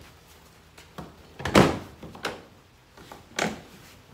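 Bonafide kayak seat being set back into the plastic hull of an SS127 sit-on-top kayak, its frame knocking and thunking against the hull several times, the loudest thunk about a second and a half in.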